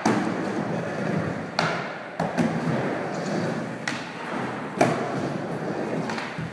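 Skateboard wheels rolling on a wooden mini ramp, a steady rushing sound, broken by several sharp clacks and thuds as the board hits the metal coping and lands back on the transition, the loudest at the very start and about five seconds in.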